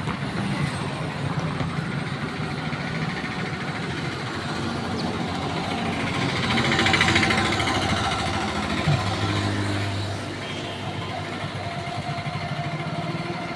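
Road traffic: vehicle engines running steadily, with one passing louder about seven seconds in.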